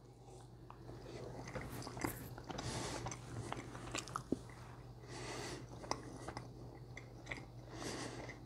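A man chewing a mouthful of smoked paddlefish close to a clip-on microphone: faint chewing in a few short spells, with small mouth clicks.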